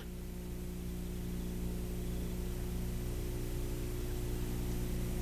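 Steady electrical mains hum with its overtones under a constant hiss, the background noise of the raw production audio track, with no distinct sound event.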